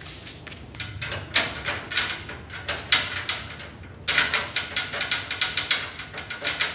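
Rapid metallic clicking and clattering from hand tools and hardware, sparse at first and then a dense, fast run of clicks from about four seconds in.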